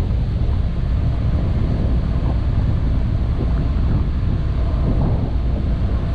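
Wind buffeting the microphone over the steady low rumble of a car ferry underway.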